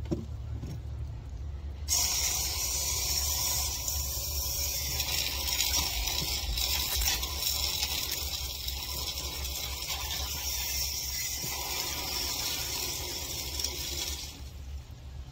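Garden hose spray nozzle jetting water into a small plastic turtle tank, filling it: a steady hissing spray that starts suddenly about two seconds in and stops near the end.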